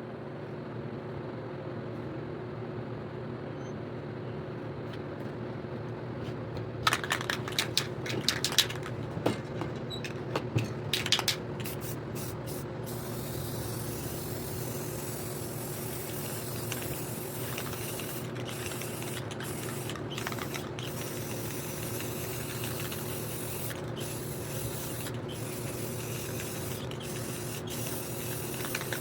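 Aerosol spray paint can hissing onto posterboard from about seven seconds in, in long sprays broken by short pauses. A quick run of sharp clicks and knocks comes as the spraying starts, over a steady low hum.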